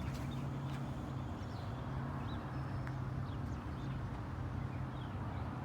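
Outdoor background: a steady low hum with a few faint, short bird-like chirps over it.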